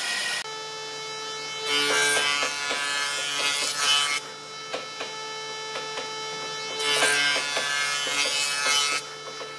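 A band saw runs briefly, then a surface jointer runs with a steady hum. Twice, about two seconds in and again about seven seconds in, the cutterhead planes an old railway sleeper for about two seconds each time, a loud rasping cut over the hum.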